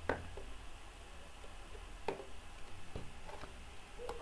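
Faint room tone with a low steady hum and a few soft, short clicks, one right at the start and two more about two and three seconds in.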